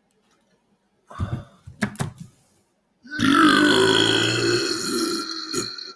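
A man belching loudly: one long, low burp starts about three seconds in and lasts some two and a half seconds. A few short sounds come before it, about one to two seconds in. The burp is brought on by chugging carbonated flavoured water.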